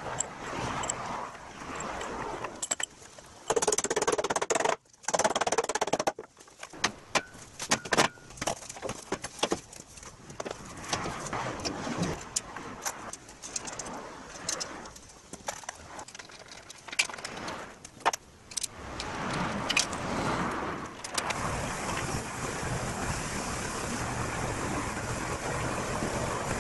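Irregular sharp clicks, knocks and clanks of hand-tool work bolting heavy timber sills onto a truck's steel chassis frame. In the last few seconds this gives way to a steady wind noise on the microphone.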